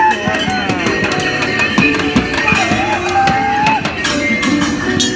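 Street drumming on a makeshift kit of metal pots, buckets and a cymbal, quick sharp hits, with a melody line running over the beat.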